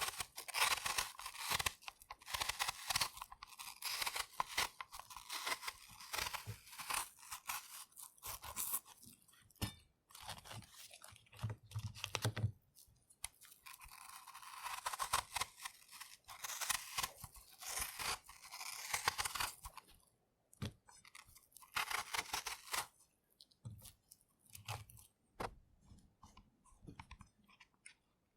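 Kitchen knife peeling an apple: crisp, crackly strokes of the blade slicing under the skin, in runs broken by short pauses. There is a dull low knock about twelve seconds in.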